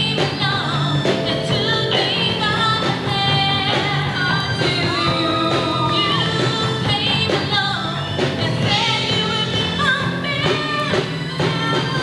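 High school rock combo playing live, a singer's voice carrying the melody over the band.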